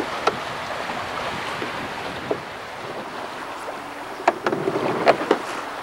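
Wind and choppy water splashing around a small fishing boat, a steady rushing hiss. A few sharp clicks or knocks stand out, one early on and a short cluster about four to five seconds in.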